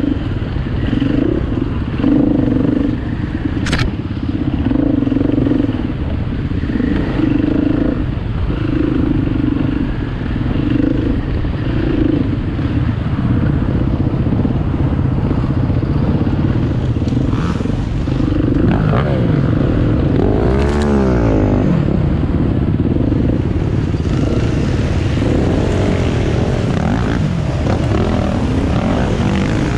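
2018 KTM EXC 250 F enduro motorcycle, a single-cylinder four-stroke, running hard off-road. Its engine note rises and falls again and again with throttle and gear changes, with a stretch of fast pitch sweeps a little past the middle.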